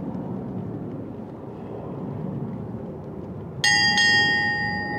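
Steady outdoor background noise, then a brass ship's bell struck twice in quick succession about three and a half seconds in, ringing on with a clear bright tone. The bell is rung as departure honors for a retiring sailor going ashore.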